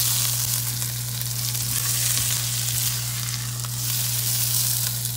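Sliced onions sizzling in hot vegetable oil in a metal pan as they are scooped out with a spatula, with a few faint scrapes and clicks of the utensil.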